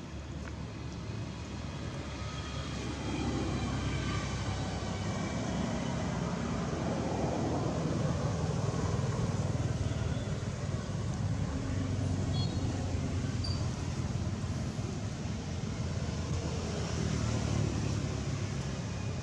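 Low, steady rumble of motor vehicle traffic, getting louder about three seconds in and then holding.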